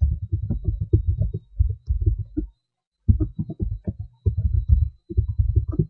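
Computer keyboard typing: quick runs of keystrokes, heard as dull low thumps, with a brief pause about halfway through.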